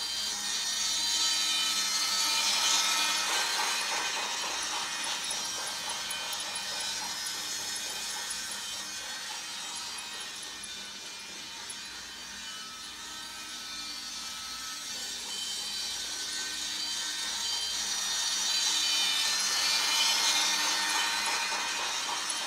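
Toy Christmas train running on its track, a steady whirring and grinding of its motor and wheels. It gets louder as it passes close about two seconds in and again near the end.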